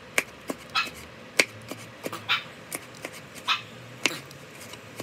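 Knife chopping cherry tomatoes on a cutting board: irregular sharp knocks of the blade striking the board, about two or three a second, some with a short slicing swish.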